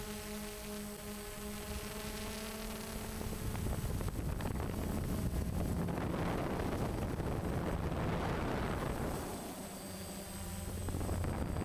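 DJI Phantom FC40 quadcopter's motors and propellers humming steadily, heard on board the aircraft. A rushing of wind over the microphone rises and mostly covers the hum through the middle.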